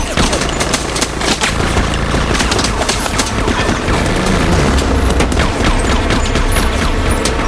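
Rapid automatic fire from compact submachine guns, many shots in quick succession, over a steady low engine rumble from motorcycles.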